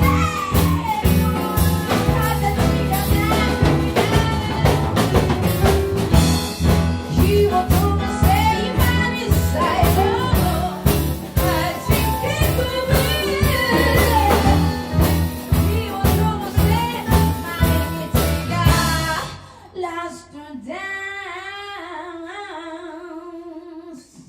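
Band music with singing, drums and a steady bass beat, which stops about nineteen seconds in. A single held note with vibrato follows and is cut off suddenly near the end.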